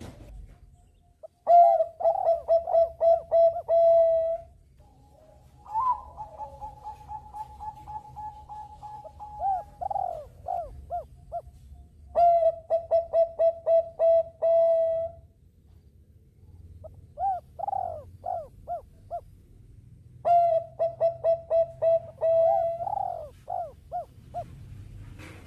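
Zebra doves (Bangkok perkutut) singing: five phrases of rapid staccato cooing notes, one after another with short pauses between, and one long held note about six seconds in.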